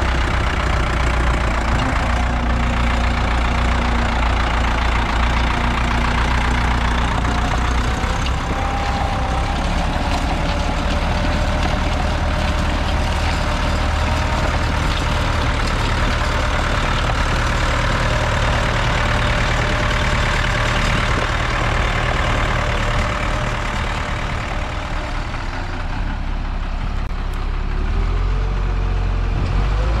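Vintage Ford 5000 tractor engine running steadily under load as it pulls a mounted plough through the soil; the pitch rises near the end.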